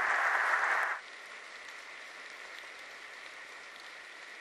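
Large audience applauding. About a second in the level drops sharply, and fainter, steady applause goes on.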